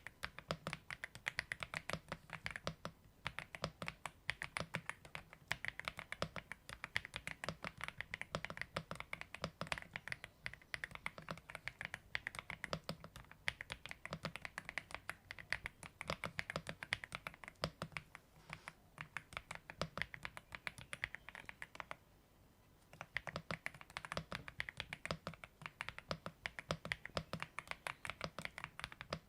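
Steady, fast typing on an AULA F75 mechanical keyboard, a dense run of key clacks with a brief pause about three quarters of the way through.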